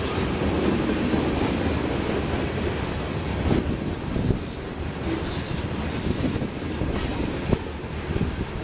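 Covered hopper cars of a freight train rolling past, their steel wheels running on the rails with a steady noise and a few sharp knocks, the loudest about seven and a half seconds in.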